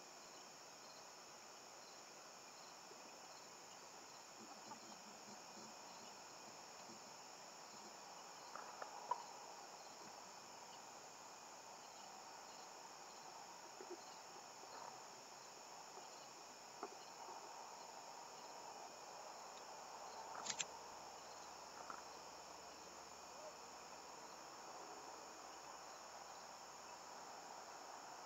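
Faint, steady high-pitched chorus of insects, with a few faint short ticks and knocks scattered through it.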